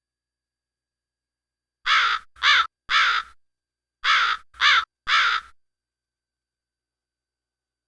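Crow cawing sound effect: six caws in two sets of three, starting about two seconds in, with a short pause between the sets.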